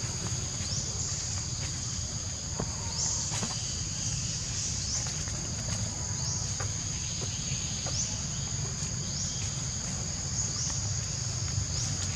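Cicadas buzzing steadily in a high band, with a fresh rising call starting every second or two, over a steady low rumble.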